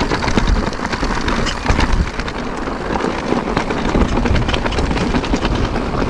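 Wind buffeting the microphone as a loud rumble, with many small clicks and rattles scattered through it.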